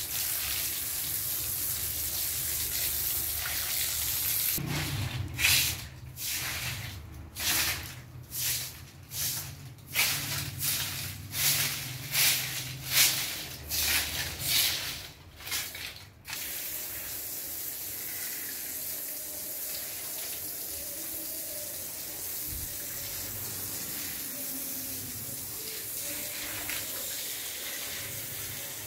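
Garden hose spraying water onto wet concrete: a steady hiss, broken for about ten seconds in the middle by a rhythmic run of swishes, a little more than one a second, as the spray is swept back and forth.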